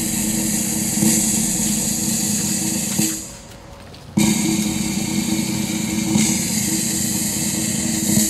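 Ceremonial snare drum rolls: two sustained rolls of about four seconds each, with a break of about a second between them.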